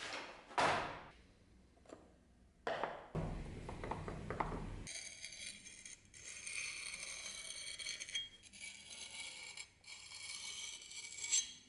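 Knocks and clatter of things being set down on a wooden workbench, then from about five seconds in a hand-held sharpening stone scraping steadily along the steel edge of a butcher's cleaver, a high hissing grind of stone on steel.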